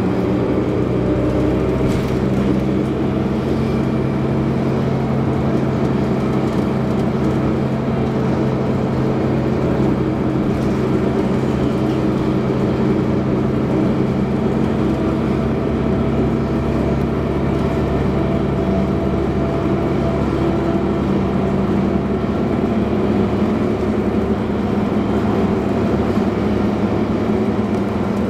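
The Cummins ISC inline-six diesel engine and Allison B400R automatic transmission of a New Flyer D40LF transit bus, heard from inside the cabin while the bus drives along. The engine runs steadily, its pitch easing slightly near the start.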